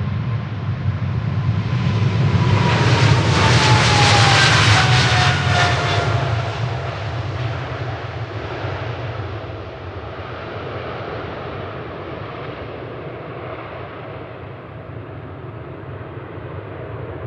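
Boeing 777-300ER's twin GE90 turbofans at takeoff power as the jet passes. The noise swells to its loudest about four seconds in, with an engine whine dropping in pitch as it goes by, then eases to a steady, more distant rumble.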